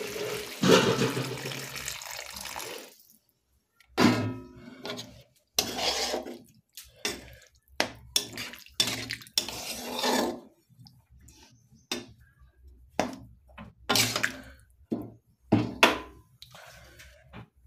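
Water poured from a jug into a kadai of fried potato curry, a dense splashing that cuts off about three seconds in. After that, a steel ladle scrapes and knocks around the pan in irregular strokes as the curry is stirred.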